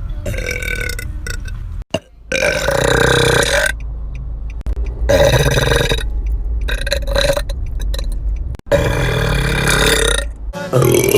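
Girls burping: a string of long, loud, drawn-out burps, several in a row with abrupt cuts between them.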